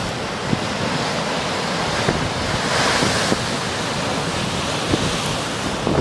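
Heavy storm surf surging and breaking against a rocky shoreline, with strong wind buffeting the microphone. The wash of the waves swells loudest about three seconds in.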